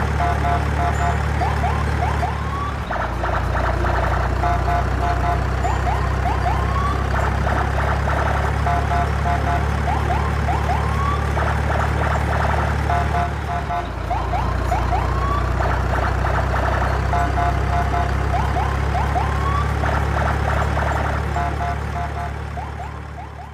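A looped siren-like sound effect over a steady low engine-like hum. Short rising whistles and quick runs of beeps repeat in a cycle about every eight seconds, and the sound fades out near the end.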